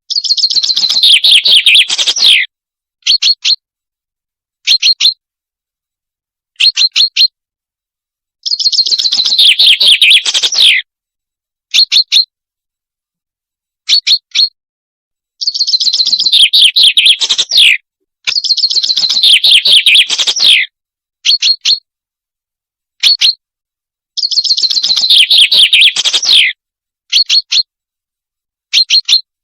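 Recorded call of the bird known to hunters as al-salanj, played in a loop as a hunting lure: short sharp chirps alternate with phrases of about two seconds of rapid high notes that slide down in pitch at the end. Dead silence separates each call from the next.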